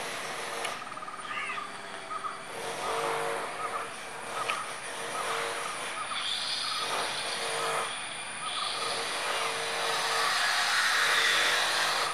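Distant jet engine noise from an Emirates Boeing 777 getting ready for take-off: a steady rushing hum that swells and brightens near the end.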